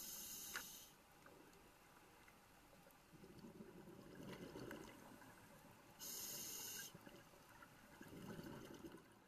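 Scuba diver breathing, heard underwater through the camera housing: a short hiss of the regulator at the start and again about six seconds in, each followed a few seconds later by a low burble of exhaled bubbles.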